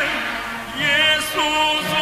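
Armenian song played from a 33⅓ rpm vinyl LP: a melody line with wide vibrato over accompaniment, dipping briefly, then a new phrase of long held notes coming in a little under a second in.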